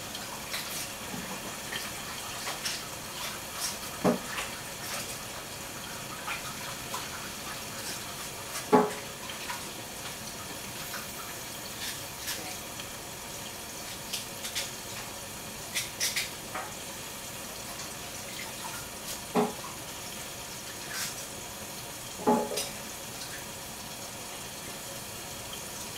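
Tap water running steadily into a sink while baby cabbage is washed by hand, with scattered small clicks and a few knocks, the loudest about nine seconds in.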